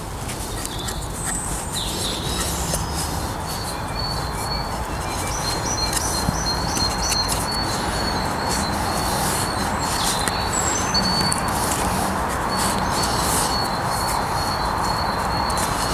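Woodland birdsong: small songbirds repeating short high chirps all through, over a steady background hiss. Now and then a faint rustle or click as paracord is pulled and wrapped around green holly sticks.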